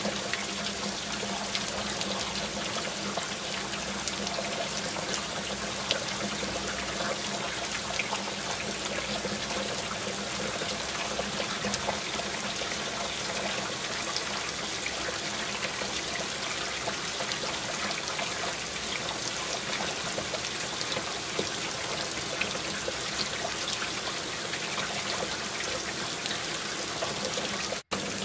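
Steady heavy rain falling, with water trickling and scattered small drops ticking close by, over a faint steady low hum.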